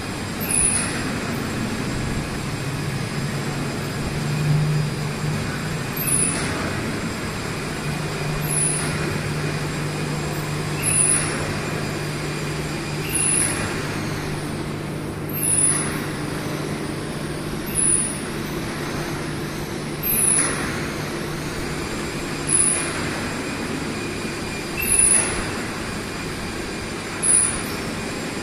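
Shoe-upper production machine running steadily with a low hum, with a short high hiss and knock repeating about every two and a half seconds as it cycles.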